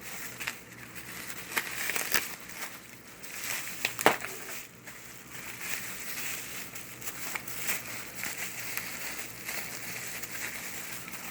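Packaging crinkling and crackling as a toy is unwrapped by hand, with scattered clicks and one sharper click about four seconds in.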